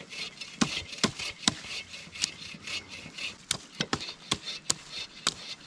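Firewood being worked or broken up: an irregular series of sharp wooden cracks and knocks, about three a second.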